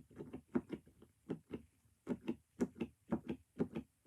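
A child giggling in quick short bursts, several a second, with brief pauses between the runs.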